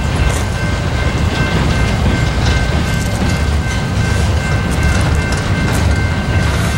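Freight train of tank cars rolling past: a steady low rumble of steel wheels on rail with scattered clicks, and a thin, steady high whine.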